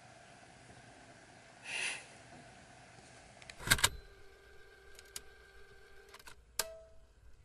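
A short breathy sound about two seconds in, then a loud pair of sharp clicks a little before four seconds, followed by a faint steady hum and a few lighter clicks.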